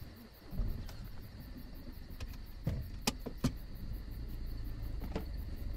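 Audi A2 running low and steady as it pulls away, with a few sharp clicks and knocks about halfway through.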